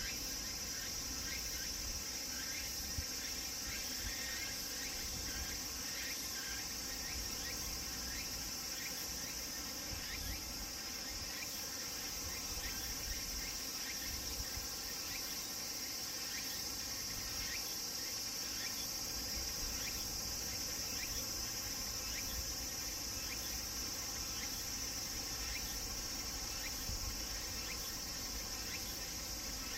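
Cicadas singing: a steady, high-pitched drone with faint repeated chirps under it and a low rumble beneath.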